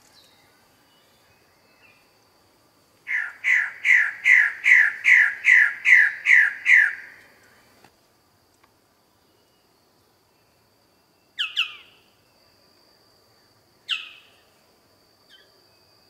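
Bird-of-paradise calling: a rapid run of about eleven loud, harsh, evenly spaced notes, then after a pause single calls that sweep downward in pitch.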